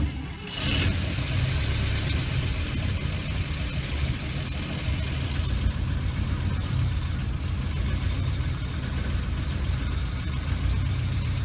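International Harvester Travelall 1200 engine starting on a new battery. It catches with a sudden burst, dips for a moment, then settles into a steady run about a second in.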